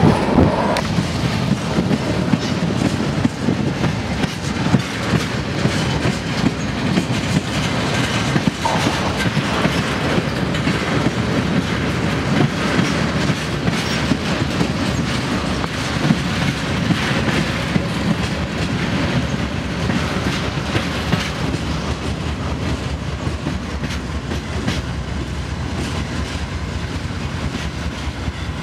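Freight cars rolling past on the track, their steel wheels clicking and clattering over rail joints in a continuous run, easing a little quieter over the last few seconds.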